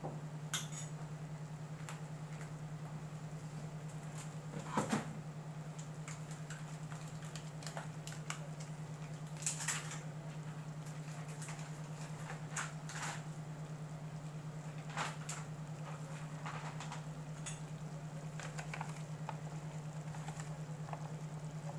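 A steady low hum from the electric cooktop, with scattered faint clicks and crackles from the butter-and-flour roux cooking in a stainless saucepan.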